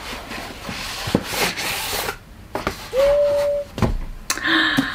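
Rustling and rubbing of an Amazon cardboard mailer being opened, with a few knocks as a hardcover book is slid out. A short held tone sounds about three seconds in, and a lower, shorter one comes near the end.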